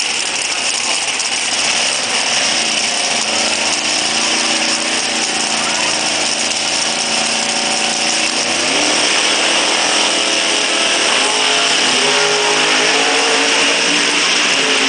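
Top Sportsman drag racing cars' engines running loud at the start line, then launching down the strip. The engine pitch climbs about eight seconds in and steps up again near twelve seconds as the cars pull away.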